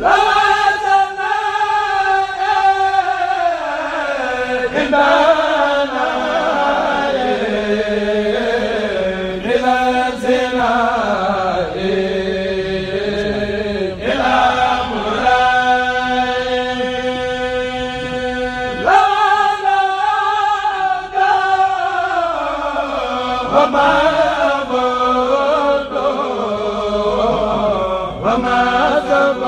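Male voices of a Mouride kourel chanting a khassida, a Senegalese Sufi devotional poem, unaccompanied. Long held notes alternate with sliding, ornamented melodic phrases.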